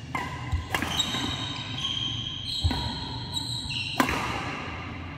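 Badminton rally: racquets striking the shuttlecock with a few sharp hits, the loudest an overhead smash about four seconds in. Sneakers squeak on the court mat between the hits.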